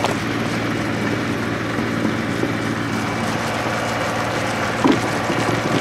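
UTB 1010 DT 4x4 tractor's diesel engine running steadily at low speed, with a single short knock about five seconds in.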